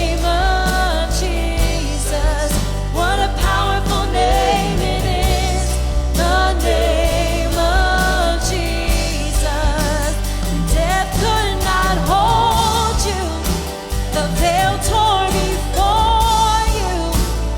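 Live church worship band: several vocalists singing a worship song with vibrato, over drums with cymbals, bass guitar, guitars and piano.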